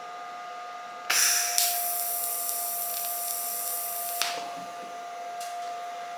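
TIG welding arc hissing steadily for about three seconds as a tack weld is laid on a sissy bar with filler rod, starting about a second in and cutting off suddenly. A faint steady whine runs underneath.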